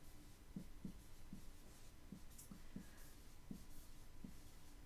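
Dry-erase marker writing on a whiteboard: faint, irregular short squeaks and taps of the pen strokes, a couple a second.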